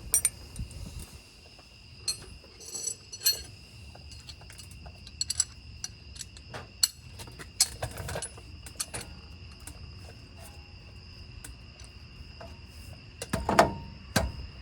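Scattered clinks and taps of hand tools on metal brake parts as a Jeep's front brake is worked on, with a couple of heavier knocks near the end. A steady high-pitched drone runs underneath.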